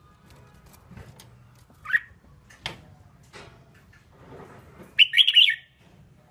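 Red-whiskered bulbul calling: a short rising note about two seconds in, then a brief burst of quick warbled notes near the end, with a few sharp clicks in between.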